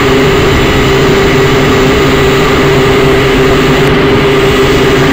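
Syma X5C-1 quadcopter's four small electric motors and propellers spinning, a loud, steady, even whine.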